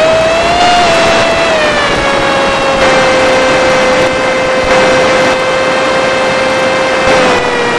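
Electric motor and pusher propeller of an FPV Skyfun foam RC plane running in flight: a steady buzzing whine. Its pitch rises slightly about a second in, settles back, and drops a little near the end as the throttle changes.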